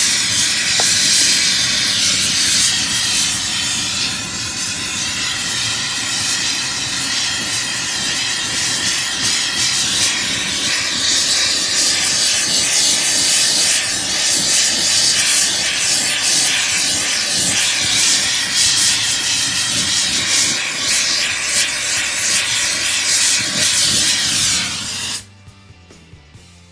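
Rosebud torch flame running with a steady, loud hiss while annealing metal ingots; the flame is shut off suddenly near the end.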